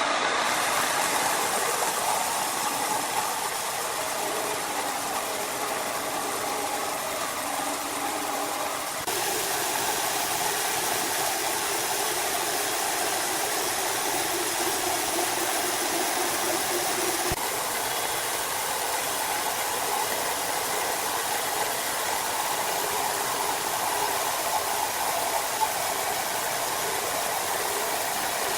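Steady running of motor-driven machinery with an engine-like hum, changing abruptly about nine and seventeen seconds in.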